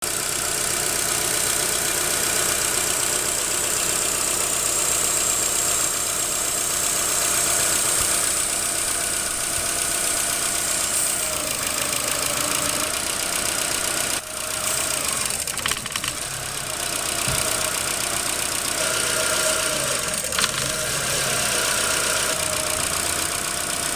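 2007 Chevy Aveo engine idling steadily, a car engine with a lean-running vacuum-leak fault. The level dips briefly about 14 seconds in, and a few sharp clicks follow around 15 to 20 seconds in.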